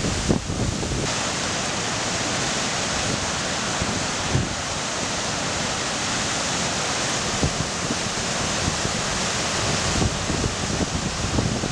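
Swollen River Esk in flood, a steady, loud rush of churning floodwater pouring through the arches of a stone bridge, with wind buffeting the microphone.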